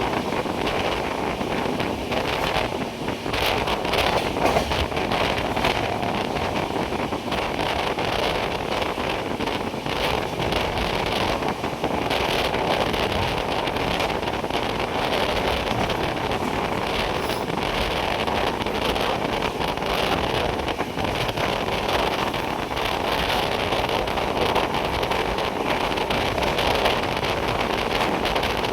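Steady rumble of a moving train, with wind buffeting the microphone.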